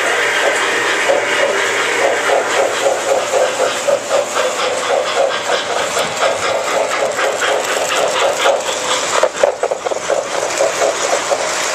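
Model train running on its track as it draws near, with a fast, even clatter of about six beats a second, loudest about nine seconds in as the cars pass close by.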